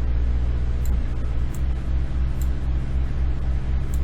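Steady low electrical hum in the recording's background, with a few faint computer mouse clicks about a second apart.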